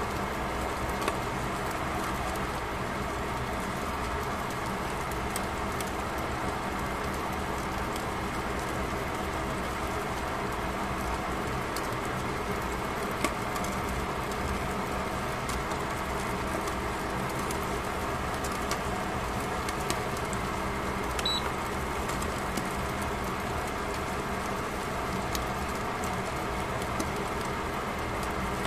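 Fish frying in a lidded frying pan: a steady sizzle with scattered small pops, over a faint steady hum.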